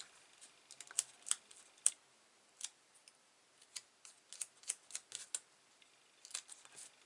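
Irregular small sharp clicks and taps of paper-crafting work at a desk, in loose clusters, from handling card and craft supplies.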